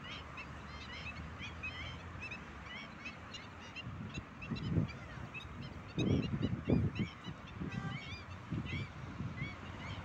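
Many birds calling, short chirping notes repeated over and over, over a steady background hiss. Low rumbling bursts come in about four and a half and six seconds in.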